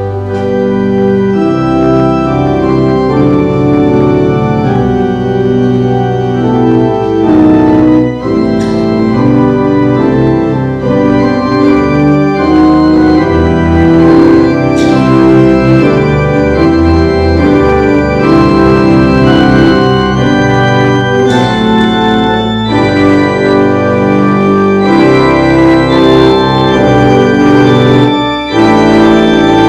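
Church organ playing sustained chords that change every second or so, over a low bass line, with a short break in the sound near the end.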